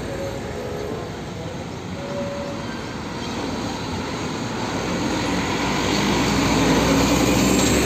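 Hino 500 fuel tanker truck's diesel engine running as the truck drives by, growing louder from about halfway through as it comes close.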